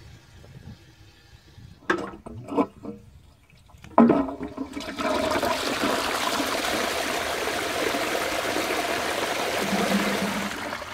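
Old Royal Doulton 'Ribble' P-trap WC pan being flushed: a few knocks about two seconds in and a sharper one at about four seconds, then water rushing into the bowl and down the trap for about six seconds, easing off near the end.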